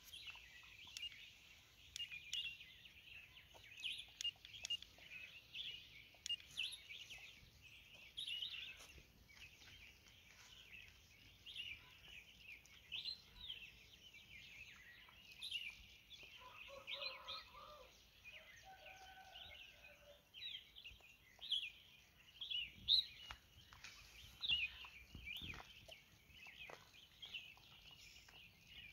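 Many small birds chirping and twittering continuously, with scattered faint clicks and a brief steady hum of a few tones about two-thirds of the way in.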